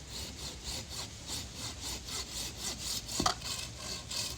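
Silky Sugoi curved pull-stroke pruning saw cutting through a thin tree branch by hand, its teeth rasping through the wood in quick, even strokes about three a second. A single sharp knock about three seconds in; the strokes stop near the end as the cut finishes.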